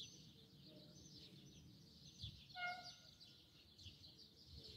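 Faint chirping of small birds, with one brief, clearer pitched call about halfway through.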